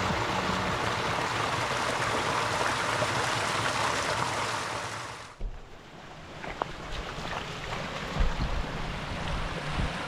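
Rushing river water, a dense steady wash of noise that cuts off abruptly about halfway through. A quieter stretch follows, with a few low thumps.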